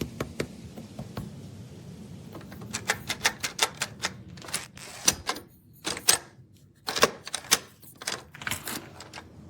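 Sharp, irregular metallic clicks and clacks in quick clusters, from door-lock hardware such as a handleset's knob, lever and latch being handled and worked.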